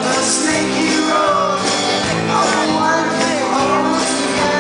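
A live band performing a song: a male lead singer over strummed acoustic guitar, electric guitar and drums.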